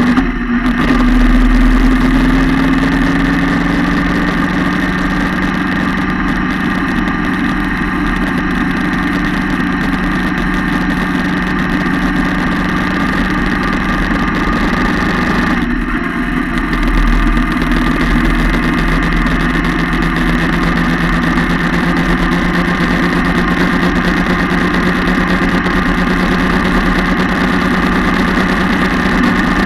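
Yamaha MT-07's parallel-twin engine running steadily through its two-can exhaust, heard close to the engine. The note dips briefly just after the start and again about halfway through.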